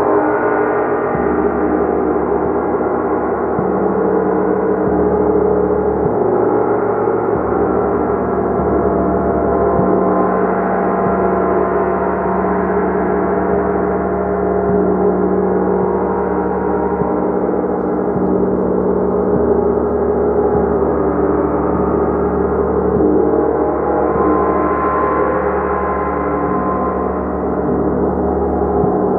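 A gong being struck repeatedly and kept ringing, building a dense, continuous wash of many overlapping tones at a steady, loud level.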